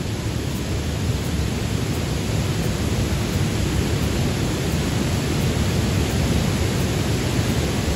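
Zillie Falls waterfall: a steady roar of falling water, heaviest in the low end.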